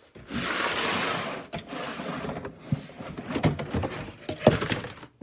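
Plastic storage-container lids being handled and carried: a scraping rush about a second long near the start, then irregular clattering clicks and knocks, with one loud knock about four and a half seconds in.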